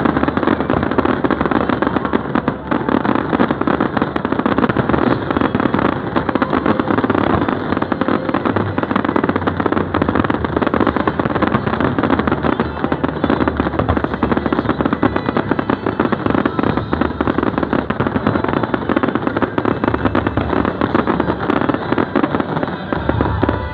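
A fireworks display going off in a continuous rapid barrage, many crackling bangs a second with no pause.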